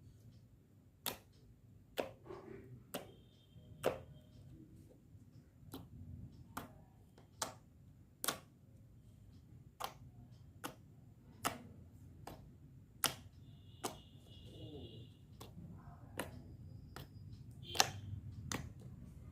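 Slime being pressed and worked by hand, giving off sharp pops and clicks about once a second as air pockets burst.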